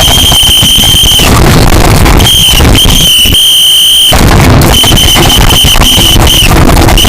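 Very loud, shrill, high-pitched alarm tone blaring as a wake-up alarm in several long blasts with short breaks between, distorted from its sheer loudness.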